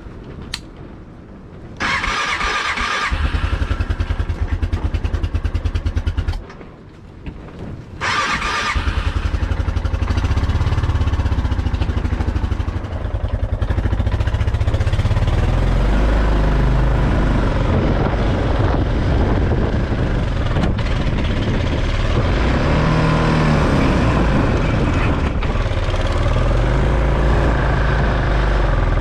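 Four-wheeler (ATV) engine started in bitter cold. It runs a few seconds, dies, is started again about a second and a half later, then keeps running unevenly with the revs rising and falling.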